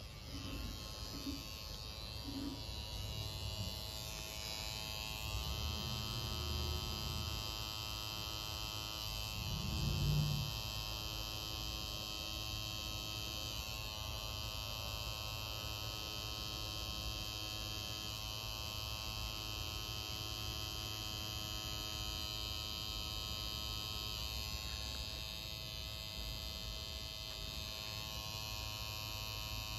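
Tattoo machine running steadily as the needle works into skin, a constant electric buzz. A brief low bump about ten seconds in.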